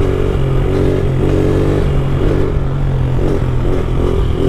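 70cc pit bike engine running at a steady, even throttle while riding, with a constant rush of noise over it.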